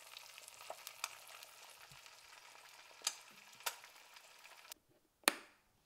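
Eggs frying in a cast iron skillet: a steady sizzle with scattered crackling pops, which cuts off abruptly near the end. A single sharp click follows.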